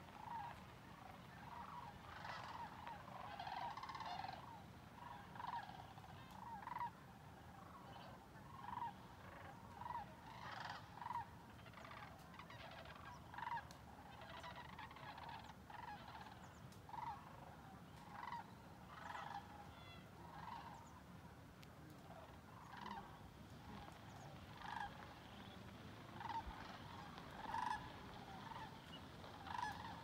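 A flock of sandhill cranes calling: rolling, rattling bugle calls from many birds, overlapping and coming every second or two.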